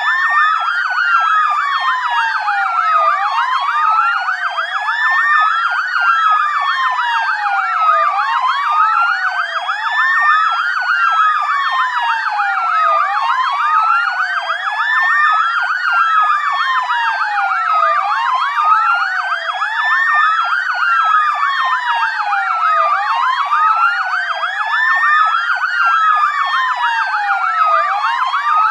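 Police siren sound effect: at least two wail sirens overlapping out of step, each sliding slowly up and down in pitch, with a new peak about every two and a half seconds.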